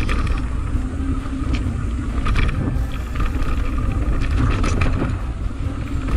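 Mountain bike rolling fast down a dirt singletrack, picked up by a camera mounted on the bike or rider: a steady rumble of tyres on dirt and wind on the microphone, with a few sharp rattles as the bike hits bumps.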